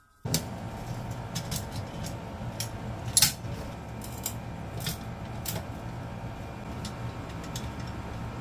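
Scattered metal clicks and clinks as locking pliers grip and bend the welded tabs of a steel burner tray. The loudest clink comes about three seconds in, over a steady low hum.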